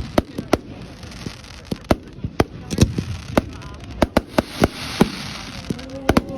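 Fireworks going off all around: a dense, irregular barrage of sharp bangs and pops, several a second, over a continuous background hiss of more distant fireworks.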